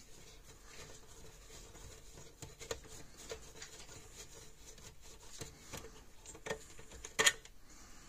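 Small clicks and rubbing as fingers work a panel-mount fuse holder loose from a plastic fence-charger case, with a sharper click a little after seven seconds in.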